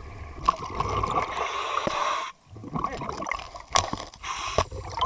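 A scuba diver breathing through a regulator underwater: hissing breaths and bubbling exhaust, with a few sharp clicks. The sound drops out abruptly a little past two seconds in.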